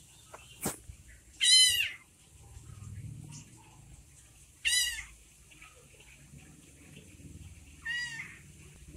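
Young ginger kitten meowing three times, high-pitched, about three seconds apart; the first meow is the loudest and the last is a little lower. A single sharp click comes just before the first meow.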